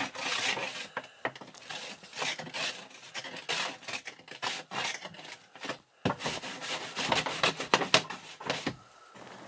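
A snow brush sweeping snow off a car's windshield in repeated, irregular scraping strokes against the glass.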